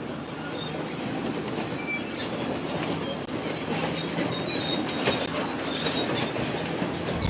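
Bulldozer crushing cars: metal squealing, creaking and clanking continuously, with sharp crunches throughout.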